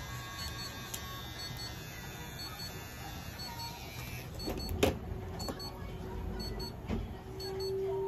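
Small battery pet trimmer buzzing as the fur on a cat's paw is clipped, stopping about halfway. Then nail clippers give a sharp snip, and another about two seconds later, as the claws are cut.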